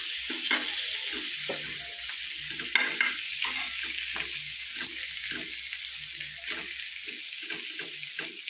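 Rava-coated tilapia pieces sizzling in shallow oil on a flat pan, with a metal spatula scraping the pan as the pieces are turned. A sharper clatter of metal on the pan about three seconds in.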